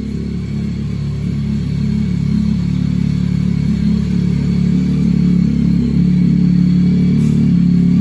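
Yamaha XSR900's 890 cc inline-three engine idling through a MIVV XM1 full-system exhaust: a steady, low exhaust note with no revving, a little louder from about six seconds in.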